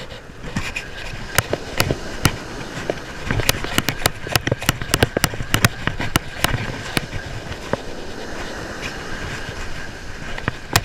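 Fishing reel being cranked to bring in a hooked fish on light surf tackle, with many sharp, irregular clicks and knocks from the rod and reel over wind noise.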